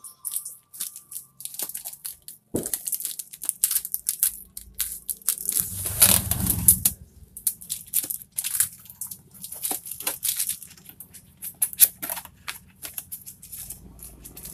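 A cardboard box being opened by hand: packing tape peeled and torn off and the flaps scraped and bent open, a string of irregular crackling scrapes with a louder rough tearing about six seconds in.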